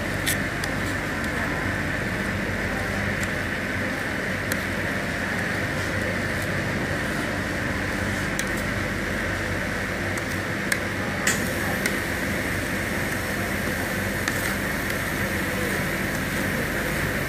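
Rolled ice cream machine's refrigeration unit running with a steady mechanical hum while a metal spatula spreads mix on the frozen steel plate, giving a few sharp clicks and taps, several close together a little past the middle.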